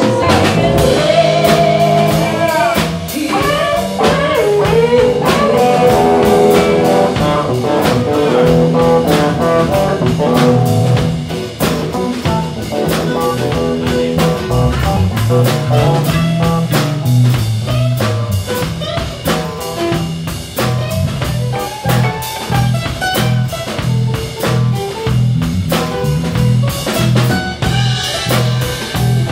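Live band playing: a drum kit keeps a steady beat under electric and acoustic guitars, with notes that bend up and down in the first few seconds.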